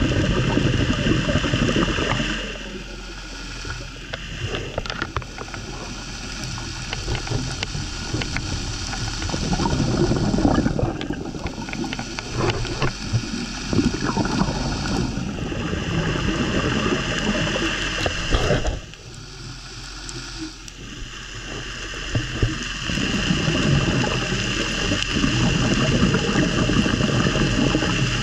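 Underwater noise around a hookah diver: gurgling and rushing air bubbles over a steady hum, dipping quieter twice, with scattered clicks and knocks in the middle stretch.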